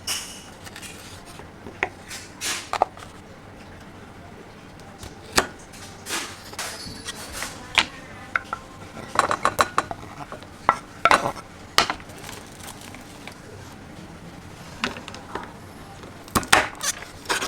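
Kitchen utensils and dishes clinking and clattering in irregular knocks and clinks, heaviest through the middle and again near the end, as food is prepared.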